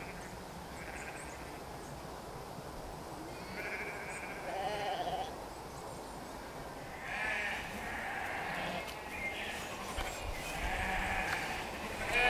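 A flock of sheep bleating, with separate calls every second or two, some overlapping.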